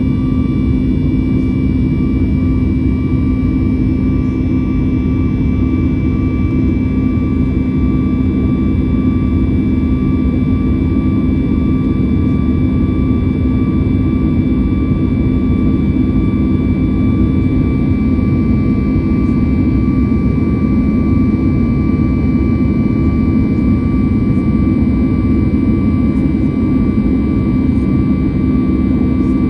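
Steady in-cabin noise of a Boeing 737 MAX 9 in flight: the CFM LEAP-1B turbofan engines and airflow make a constant low rush, with a steady low hum and fainter high whines on top.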